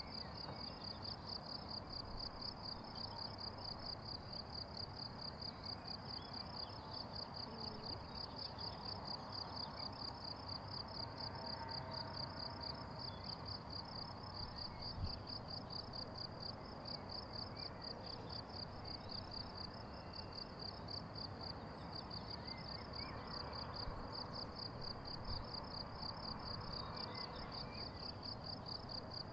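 Crickets trilling steadily in one high, rapidly pulsing note over an even low background rumble, with a faint single knock about halfway through.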